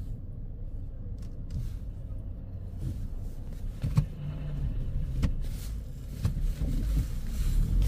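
Low, steady outdoor rumble with the hum of a running vehicle engine, broken by a sharp crack about four seconds in and another about a second later.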